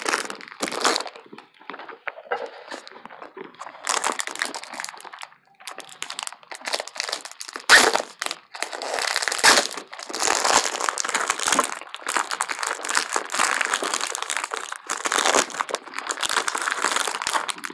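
Close-miked crinkling and crumpling, dense and crackly, with one sharp crack about eight seconds in.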